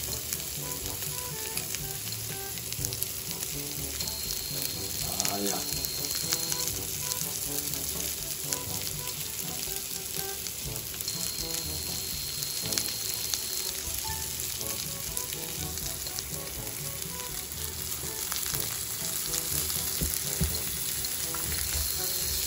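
Diced bacon frying in a stainless steel pan in leftover burger fat: a steady sizzle with scattered crackles. Near the end a spatula stirs and scrapes it around the pan.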